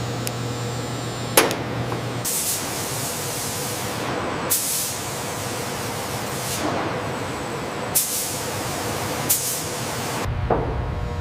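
Steady industrial machinery noise broken by short bursts of compressed air hissing, five or so, each well under a second. There is a sharp metallic click or clank about a second and a half in, the loudest sound, and a few fainter knocks later.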